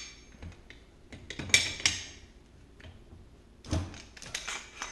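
Sharp clicks and knocks of a Magpul AR wrench working against the castle nut on an airsoft M4 buffer tube as the nut is broken loose. They come in two short clusters, about a second and a half in and again near the four-second mark.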